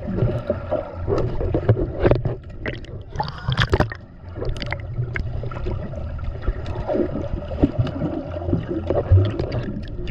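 Swimming-pool water sloshing and gurgling, heard muffled from underwater, with irregular sharp splashes as a swimmer moves close by.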